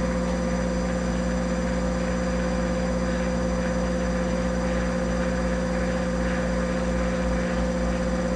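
Monarch 10EE lathe's DC spindle drive motor running steadily in reverse at constant speed: a steady high whine over a low hum.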